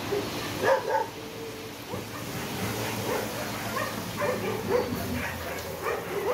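Many dogs barking and yelping over one another, repeatedly through the whole stretch, over the low steady running of a dump truck's engine as it tips out a load of gravel.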